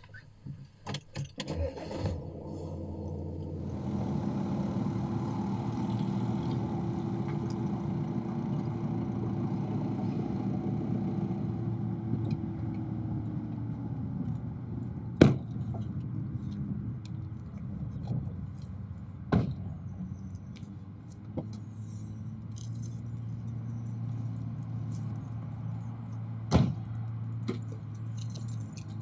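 Car engine running steadily, its note falling partway through as the car slows. Then car doors are shut with three sharp slams spread over the rest of the time, over a low continuing hum.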